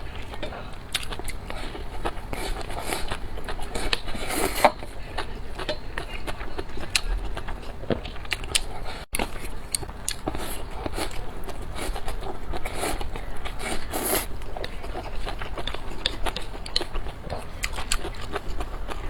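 Close-miked eating sounds: chewing and biting, with frequent sharp, crunchy clicks. The sound briefly cuts out about nine seconds in.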